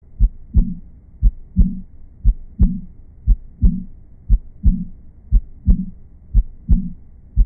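Heart sounds with an early diastolic murmur: a steady beat of about one a second, each beat a pair of clicks (S1 and S2), with a short murmur right after the second. This is the murmur of aortic or pulmonary regurgitation.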